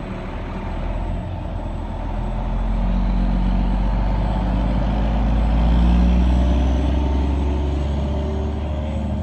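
Steady low rumble of an idling motor vehicle engine, growing louder through the middle and easing off toward the end.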